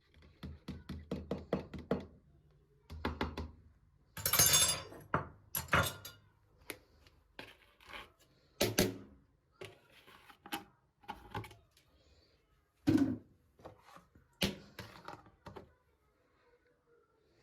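Household things being handled and set down: a quick run of about eight light clicks, then scattered knocks and thunks with a short rustling burst between them.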